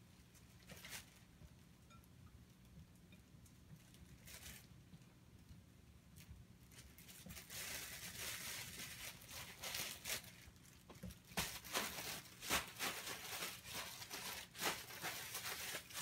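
Clear plastic zip-top bag crinkling and rustling as fish pieces are shaken and worked in a dry breading mix: faint and sparse at first, then busy and continuous from about halfway through.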